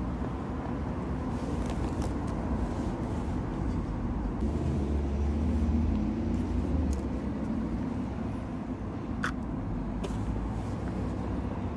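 Steady low background rumble that swells a little about halfway through, with a light, sharp click near the end.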